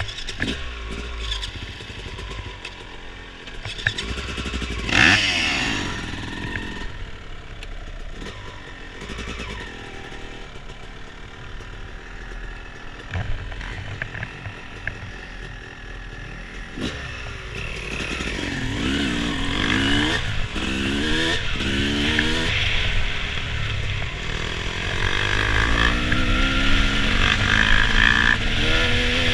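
Dirt bike engine running and revving, its pitch rising and falling again and again as it goes through the gears, louder in the second half. A sharp knock about five seconds in is the loudest moment.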